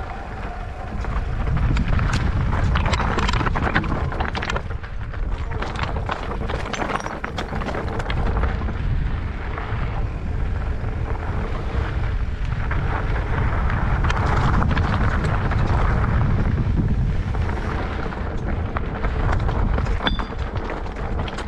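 Wind rushing over the microphone of a moving rider, with a dense scatter of small rattles and knocks from the bike running over rough trail.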